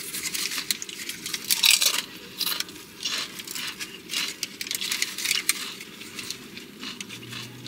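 Eating sounds: a steady run of many quick, light clicks and crackles.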